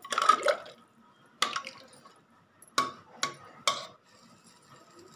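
Metal spoon stirring watery chickpea curry in a metal pot, the liquid swishing as the spoon scrapes and clinks against the pot. Then four sharp clinks of the spoon striking the pot, spaced about a second apart.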